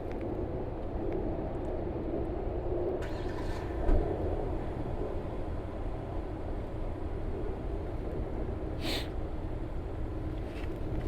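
Outdoor street background noise: a steady low rumble, with a short hiss about three seconds in, a single bump around four seconds, and another brief hiss near nine seconds.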